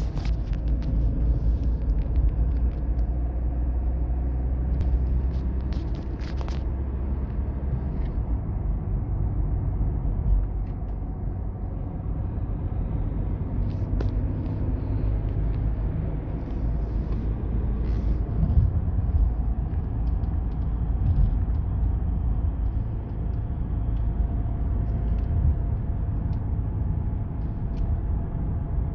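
Car being driven: steady road and running rumble with a faint steady whine on top, the jaulen/heulen (whining, howling) noise the owner is trying to trace. He says the differential is fine.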